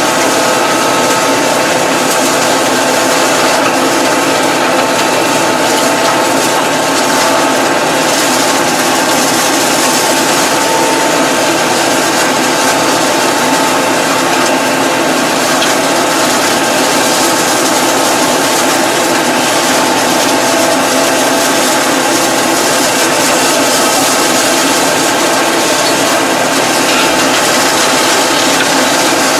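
Massey Ferguson 2220 tractor engine running steadily under load, heard from inside the cab, with a rear mower cutting through tall grass and brush. A constant machine noise carries a steady whine.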